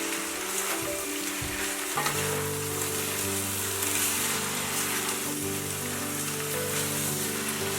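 Stir-fry noodles sizzling steadily in a hot pan, under background music.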